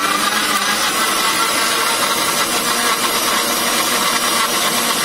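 Electric kitchen mixer grinder running at speed, blending apple and milk into a milkshake in its steel jar: a loud, steady whir.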